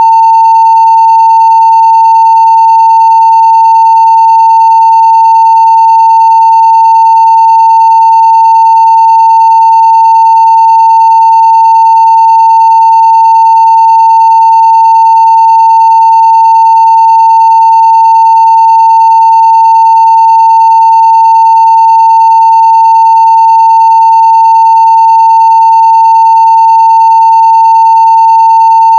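Steady 900 Hz sine-wave test tone at full level (0 dB), one unbroken pitch.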